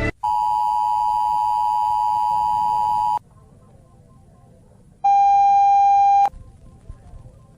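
Emergency Alert System attention signal: two steady tones sounding together for about three seconds, then cutting off sharply. About two seconds later a single lower, buzzier beep sounds for just over a second.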